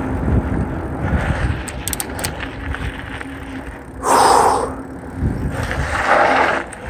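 Mountain bike rolling along a dirt trail, with wind rumbling on the microphone and tyre noise. Two short, louder hissing rushes come about four and six seconds in.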